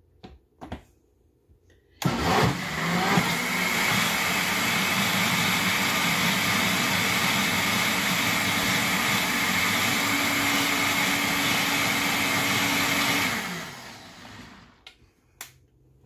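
Vitamix blender starting suddenly and running steadily for about eleven seconds, churning a thick butternut squash and roasted red pepper sauce to mix in a pinch of sage, then switched off and winding down. A few light clicks come before it starts.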